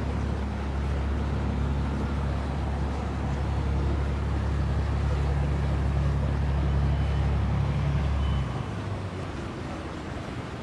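A passing passenger boat's engine, a low steady drone that drops away sharply about eight and a half seconds in.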